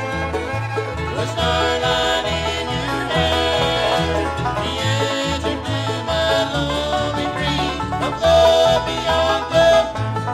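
Instrumental break in a bluegrass band recording: a banjo leads over guitar, with a bass keeping a steady beat underneath. A few long held notes ring out near the end.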